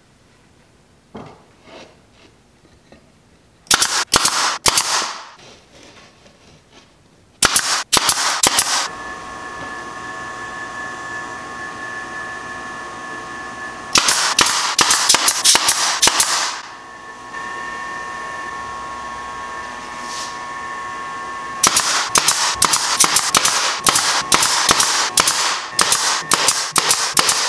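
Pneumatic brad nailer firing brads into half-inch Baltic birch plywood drawer joints, in quick runs of sharp shots that come densest near the end. A steady air-compressor hum with a couple of held tones starts about a third of the way in and runs for a while.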